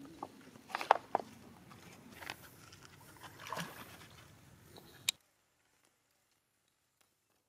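Water splashing and lapping as monkeys swim, with several sharp splashes in the first five seconds. The sound cuts off abruptly about five seconds in, leaving near silence.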